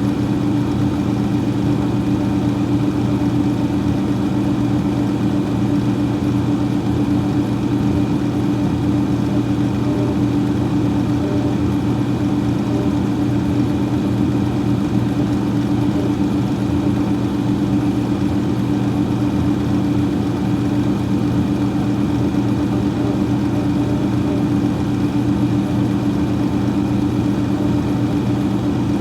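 Freezer fan running without change: a steady low hum made of several held tones under an even whir.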